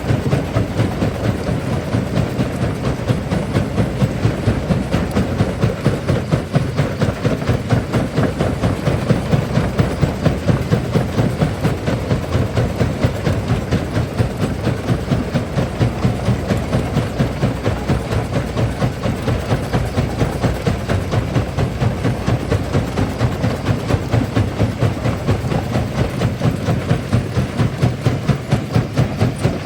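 Large primary jaw crusher running and crushing rock: a loud, heavy mechanical rumble with an even, rapid beat from the swinging jaw, and grinding and cracking of stone mixed in.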